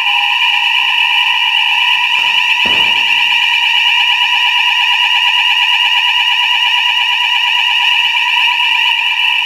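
Fire alarm sounder going off continuously: a loud, unbroken high tone with shrill overtones.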